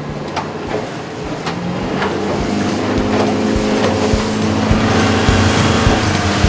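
Yamaha 150 four-stroke outboard driving a small aluminium boat under way, growing steadily louder as it speeds up, with water rushing past and short knocks of the hull on the chop.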